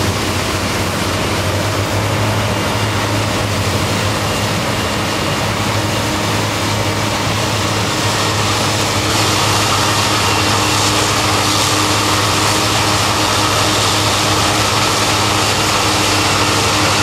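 Heavy farm machinery running in the field: a steady, loud diesel engine drone under an even rush of noise, which turns brighter and harsher about nine seconds in.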